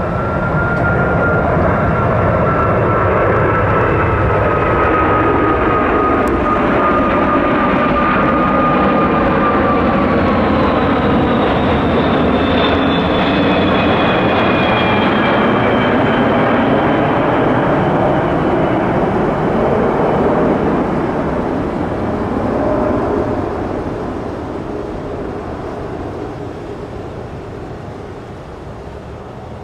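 Boeing 747-400's four Rolls-Royce RB211 turbofans passing low overhead on landing approach: a loud, steady jet roar with thin engine whines that slide slowly down in pitch as it goes over. After about twenty seconds the sound fades as the jet moves away.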